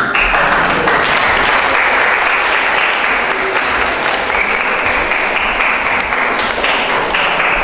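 Audience applauding: many people clapping together, starting abruptly and keeping up steadily.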